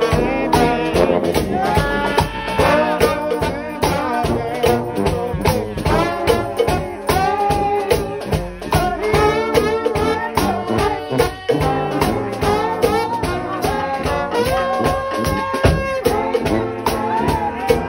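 Trombone shout band playing gospel music: several trombones sounding together in harmony over fast, steady drumming.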